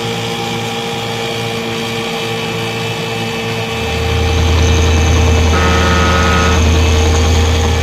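Motorboat engine running steadily, its low drone growing louder and deeper about four seconds in.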